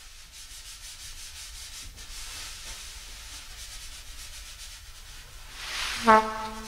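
Free-improvised music from a trumpet, drums and saxophone trio: a steady scraping, rubbing texture, then about six seconds in a breathy swell that ends in a short, loud horn note.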